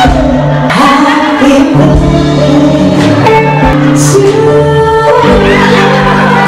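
Live band music with a woman singing into a microphone over electric guitar, keyboard and drums.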